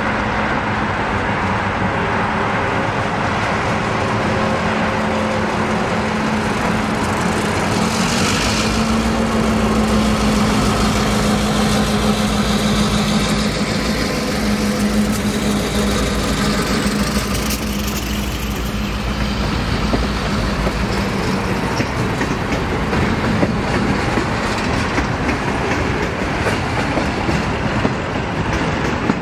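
Diesel freight locomotives passing close below, their engines running steadily and swelling about eight seconds in with a deep rumble. Then tank cars and freight cars roll by with steady wheel-on-rail noise.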